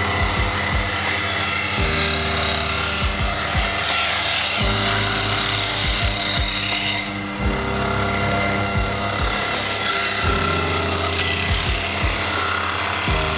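Table saw blade cutting lengthwise along a strip of pallet wood, a steady, loud hiss of the blade working through the wood.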